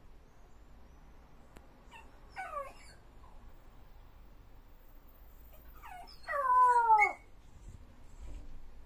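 Jack Russell terrier whining: a couple of short falling whines about two seconds in, then a louder, longer falling whine near the end, a dog pining for its absent owner.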